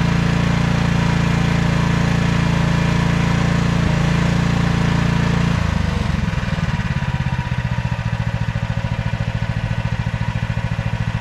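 Mini excavator engine running steadily at high throttle, then dropping about five and a half seconds in to a slower, pulsing idle.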